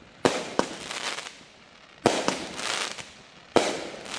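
Aerial fireworks bursting: three sharp bangs about a second and a half to two seconds apart, the first two each followed quickly by a smaller pop, each report trailing off slowly.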